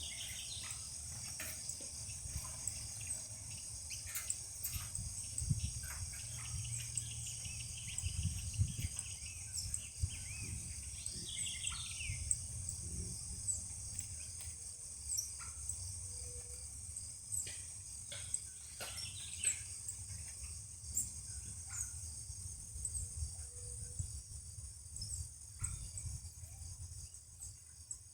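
Steady high-pitched insect trilling, crickets by their sound, with a few short bird chirps scattered through, over a low rumble.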